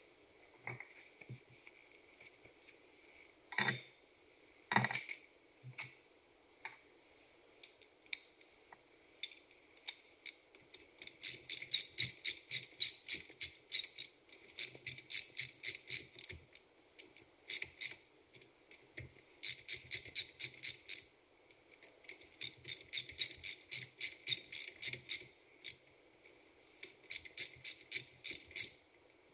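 Ratchet wrench clicking in quick runs of a few seconds each, about five clicks a second, with pauses between runs. Two louder metal knocks come a few seconds in.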